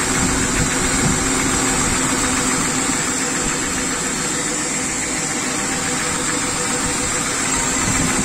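BMW M50 straight-six idling steadily from cold, its VANOS unit freshly reassembled. The knock it used to make is almost gone when cold, only very faint.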